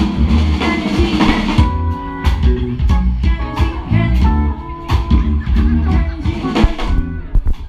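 Live band music: electric guitar playing over bass guitar and a drum kit.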